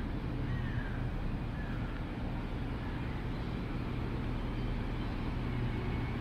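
City street ambience: a steady low rumble of distant traffic, with a few faint bird chirps in the first few seconds.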